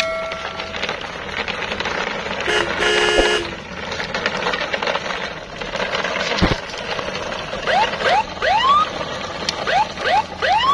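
Cartoon-style vehicle sound effects: a horn blast of about a second, two to three seconds in, then short rising whoops in quick groups of three twice in the last three seconds, over steady background noise.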